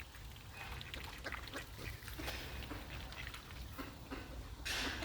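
Ducks quacking in short, scattered calls, with a brief louder rush of noise near the end.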